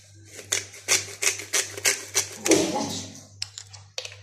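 Pink salt being dispensed from a small glass salt jar: a rapid run of crisp clicking and crunching that thins out to a few scattered clicks about three seconds in.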